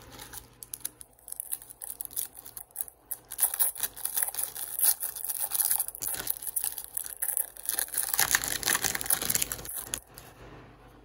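Foil trading-card pack wrapper being torn open and crinkled, a dense irregular crackling and rustling that builds over several seconds and dies away near the end.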